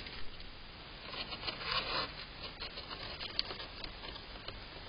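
A hedgehog scuffling and rustling in dry hay close to the microphone: a burst of rustling about one to two seconds in, then scattered light clicks and scratches.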